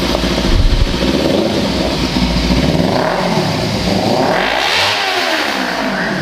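Kawasaki Ninja 300's parallel-twin engine revved through a non-stock aftermarket exhaust, the revs climbing and dropping back several times, with the biggest rev rising and falling in the second half.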